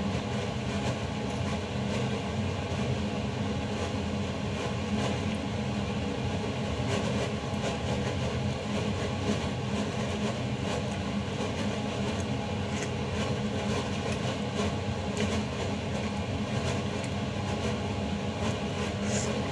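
A steady mechanical drone with a low hum, like a running fan or extractor, with a few faint clinks of a metal fork and spoon against a stainless steel pot in the later part.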